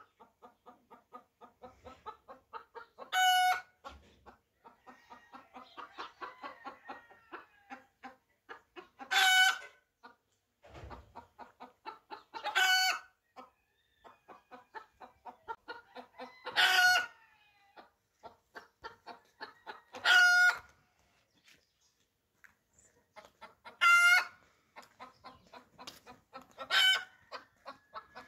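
Chicken clucking in a quick, steady run of short clucks, with a loud, high squawk about every three to four seconds.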